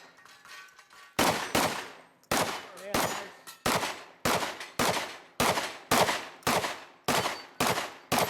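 A shotgun fired rapidly at targets in an open-division run: after about a second's pause, some thirteen shots come roughly half a second apart, each ringing out briefly.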